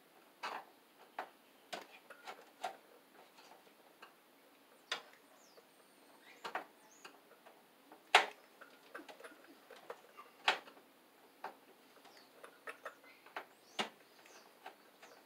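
Irregular clicks, taps and light scrapes of stiff 12-gauge copper wire being bent and pushed against a metal breaker panel, with two louder knocks about 8 and 10.5 seconds in.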